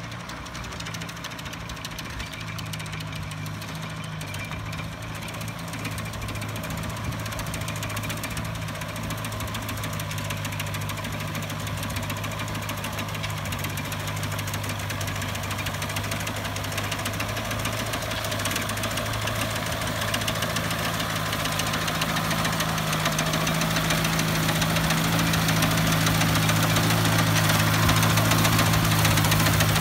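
Small tractor engine running steadily, growing louder as it approaches while pulling a McCormick grain reaper through wheat. A rattling clatter from the reaper's mechanism builds up toward the end as it passes close by.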